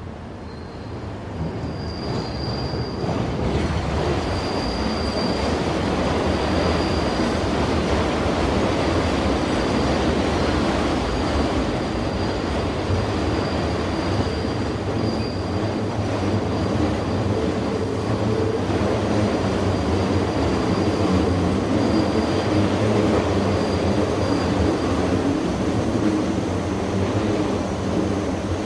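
New York subway train running on an elevated section of track: a loud, steady rumble that builds over the first few seconds, with a thin, high wheel squeal coming and going through most of it.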